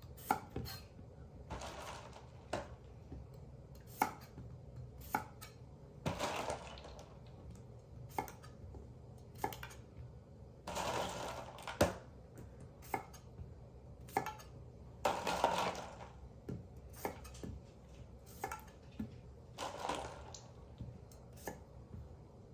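Kitchen knife cutting the ends off pickling cucumbers on a cutting board: sharp, irregular knocks of the blade hitting the board, about one a second, with a few longer scraping sounds between.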